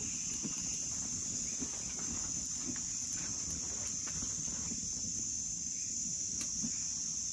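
Steady high-pitched drone of an insect chorus, over a low, even rustling with scattered faint clicks.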